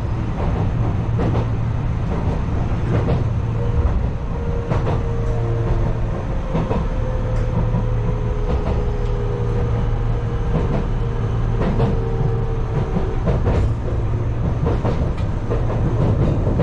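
Enshu Railway electric train (2004F set) running along the line, heard from on board: a steady low rumble with wheel clicks about once a second. A faint whine holds from about three seconds in until near the end.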